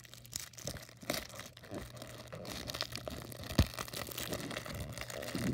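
Paper wrapper of a 1989 Fleer baseball card wax pack crinkling and tearing as it is opened by hand, busier toward the end, with one sharp knock midway.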